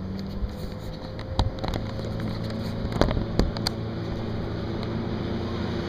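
Speedboat engine running steadily as it comes across the water, a low hum that slowly grows louder. A few sharp knocks sound during the first few seconds.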